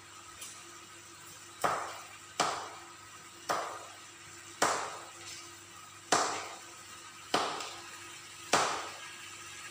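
Chicken breast cooking in a pan of bubbling liquid, spitting with sharp pops about once a second, seven in all, each trailing off in a short sizzle.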